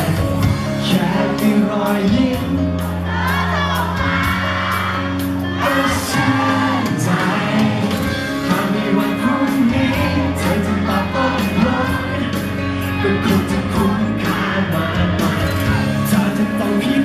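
A young man singing into a handheld microphone over backing music with a steady beat.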